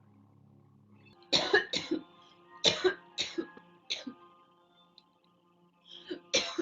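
A girl coughing in short, sharp fits. A quick run of coughs starts about a second in, a few more follow spaced out, and there is a pair near the end. Faint steady background music sits underneath.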